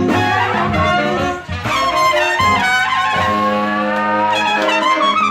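Music with brass horns playing held and sliding notes.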